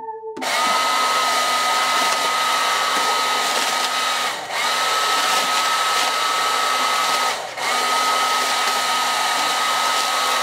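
Hairdryer with its heating element removed, running to blow up a plastic trash-bag sky dancer: a steady rush of air and motor with a high, even whine. It drops out briefly twice and cuts off at the end.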